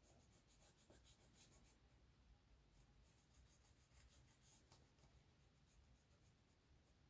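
Very faint, irregular scratching of a cotton-tipped swab rubbed back and forth along model railway rails, working Autosol metal polish into the joins of a point.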